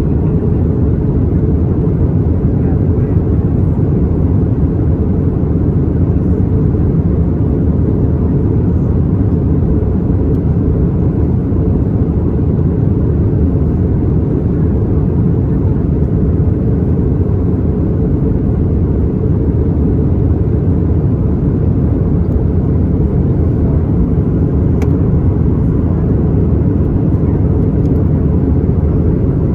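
Steady low cabin roar of an Airbus A320 in flight: engine and airflow noise heard from inside the passenger cabin.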